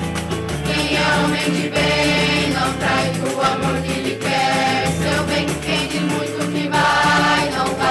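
Choir singing together in sung phrases over instrumental accompaniment with a steady bass line.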